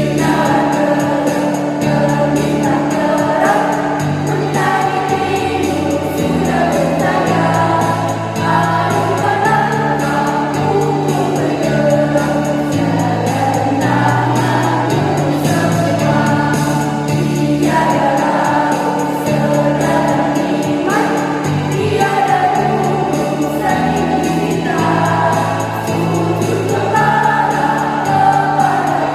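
A choir singing a march song over instrumental backing.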